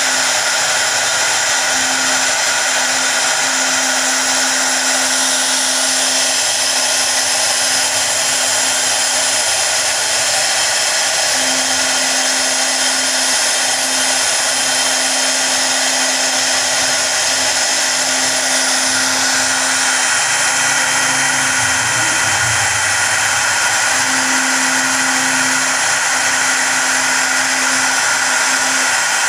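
CNC router spindle running steadily with a high whine while its engraving bit carves lettering into a wood panel. A lower hum starts and stops repeatedly underneath.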